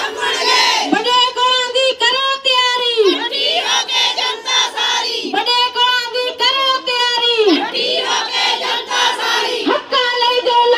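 A woman singing into a handheld microphone in long, held high notes, each line falling away at its end.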